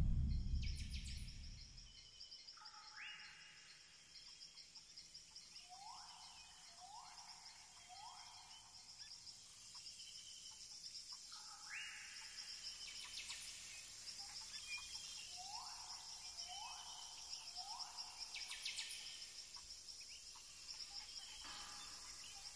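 Tropical rainforest ambience: a steady, high-pitched insect buzz, with a bird repeating a sweeping whistled call, mostly in runs of three.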